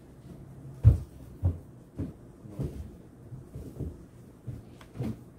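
A series of about eight dull thumps or knocks, roughly two a second, the first about a second in the loudest.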